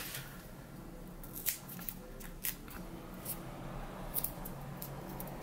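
A few sharp, irregular clicks and light scraping as a soft rubber cover is pressed by hand onto a metal mirror-holder bracket.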